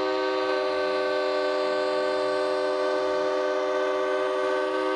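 Semi truck's air horn held in one long steady blast, a chord of several notes sounding together.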